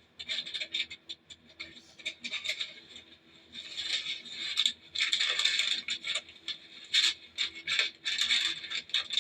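Food packages and kitchen items being rummaged through and handled: irregular scraping, rattling and crinkling with sharp clicks, busier in the second half.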